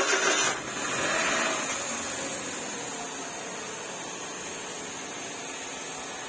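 Suzuki Every DA64V turbo's 660 cc three-cylinder engine catching at a cold start after standing unused for a month: loud at first, flaring up again about a second in, then settling into a steady idle with a constant high whine over it.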